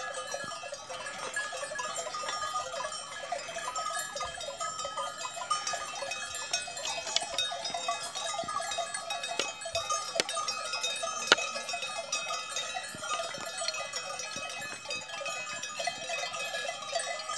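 Bells on a herd of grazing cattle clanking and ringing at irregular intervals, with a few sharper clanks about ten and eleven seconds in.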